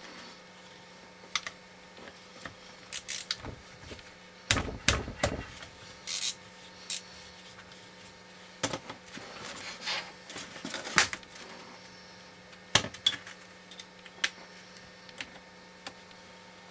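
Hand tools and metal steering-rack parts being handled: irregular clinks, knocks and short scrapes, with a steady low hum underneath.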